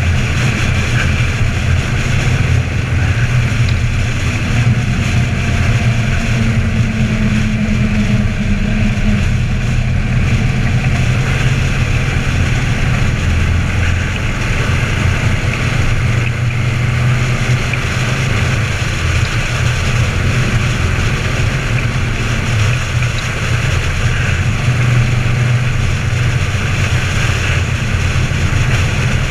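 Engine of a 2012 Harley-Davidson Ultra Limited, a 103-cubic-inch V-twin with an Andrews 57H cam and true dual exhaust, running steadily at cruising speed. Heavy wind rushes over the microphone.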